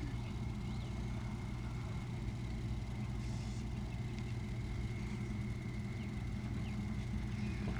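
Steady low mechanical hum like an idling engine, with a faint steady high whine over it.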